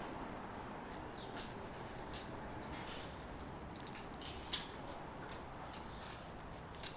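Steady background noise with scattered short sharp clicks and ticks at irregular intervals, the loudest about four and a half seconds in.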